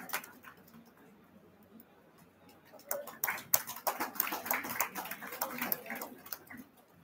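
Applause dying away at the start; after a short pause, scattered audience clapping starts up again about three seconds in and fades out shortly before the end.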